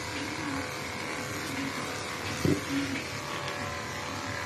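Steady whir of an electric pet-grooming machine running while a long-haired cat is groomed, with a short dull thump about two and a half seconds in.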